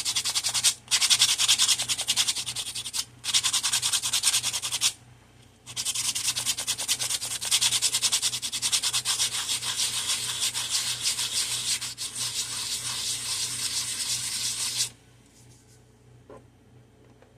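Sandpaper rubbing back and forth in quick strokes, sanding the bottoms of tic-tac-toe pieces. It comes in spells with brief pauses and stops about three seconds before the end.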